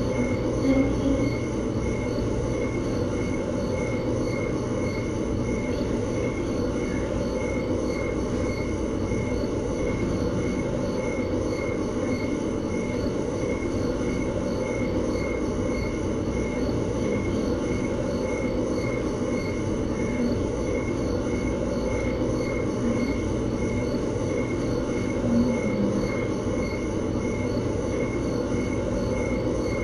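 Steady low rumbling background noise with a faint high-pitched pulse repeating at an even rate.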